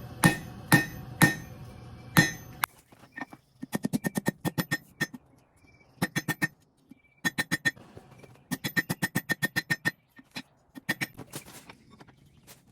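Hand hammer striking a small hot steel bar on an anvil, rounding the handle of a forged hammer pendant. A few loud ringing blows come first, then runs of quicker, lighter taps, about eight a second, each with a bright anvil ring.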